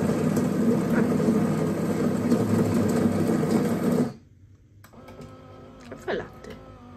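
Cecotec WiFi bean-to-cup coffee machine working through its brewing cycle: a loud, steady mechanical buzz that cuts off suddenly about four seconds in, leaving a much quieter hum.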